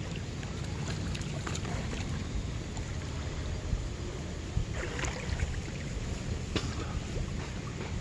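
Water sloshing and splashing around a person wading chest-deep in a river and reaching into the bank by hand, over a steady low rumble. A couple of sharper splashes come about five and six and a half seconds in.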